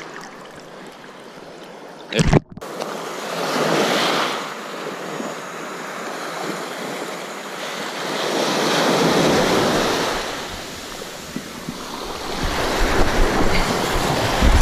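Small surf waves breaking and washing onto a beach in slow swells every few seconds, with some wind on the microphone. A short sharp thump about two seconds in is the loudest moment.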